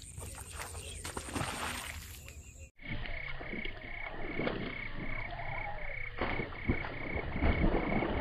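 Frogs calling from the marsh in an even run of short pulses, a little over two a second, with splashing as a fish strikes at a lure on the water's surface.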